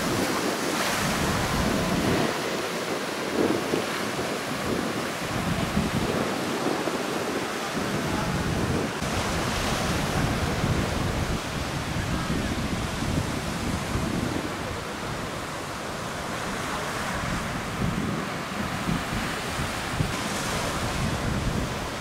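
Heavy surf breaking on the shore, a steady rush of white water, with wind gusting against the microphone in low rumbles.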